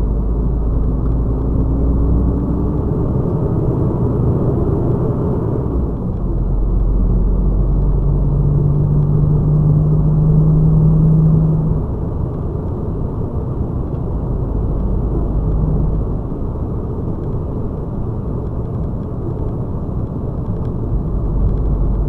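Diesel engine of a KAMAZ 54901 truck heard from inside the cab over steady road rumble as the truck picks up speed. Its note climbs and then falls away sharply about twelve seconds in.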